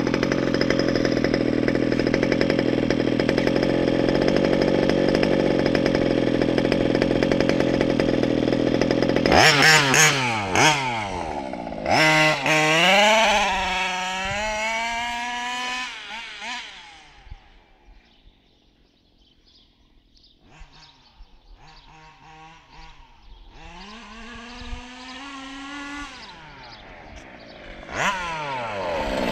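KM Baja RC buggy's 32cc Zenoah G320 two-stroke engine with a silenced side pipe, running steadily, then revving hard about nine seconds in as the buggy speeds away and the sound fades into the distance. It comes back up louder later, and near the end the note drops as it passes close by.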